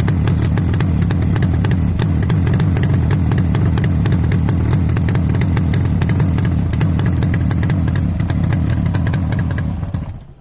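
A 1988 Yamaha RD350's air-cooled two-stroke parallel-twin engine idling steadily, loud and close, with a rapid crackle of exhaust pulses. The sound falls away over the last half second.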